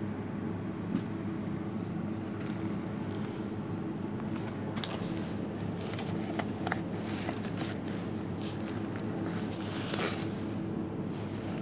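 Steady low machine hum of a supermarket's room tone. In the second half come scattered soft clicks and crackles of handling noise.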